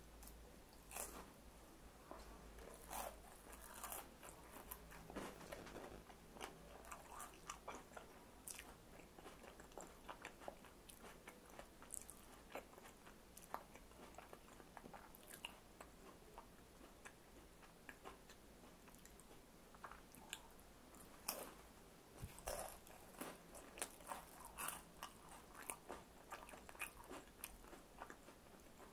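Faint close-up chewing and crunching of crisp food, irregular crackling bites scattered throughout.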